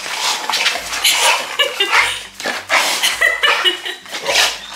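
Two dogs play-fighting, a yellow Labrador-type dog and a small long-haired dog: repeated short breathy bursts, a couple each second, with a few brief higher yips.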